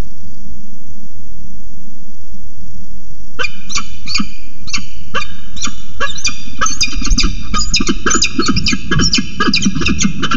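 Peregrine falcon calling: a series of short, harsh repeated calls starting about three seconds in, coming faster and denser in the second half. A steady low rumble sits underneath throughout.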